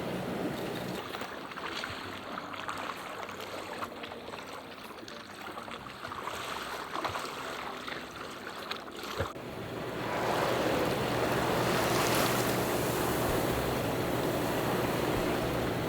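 Water washing along a sailboat's hull under way, with wind on the microphone. About nine seconds in the sound changes abruptly to a louder, fuller rush of water.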